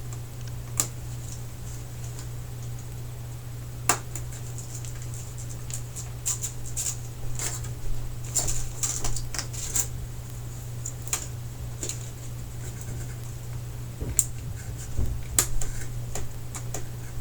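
Scattered clicks, ticks and light scraping from plastic and metal TV parts being handled and unclipped during disassembly, busiest in the middle. A steady low hum runs underneath.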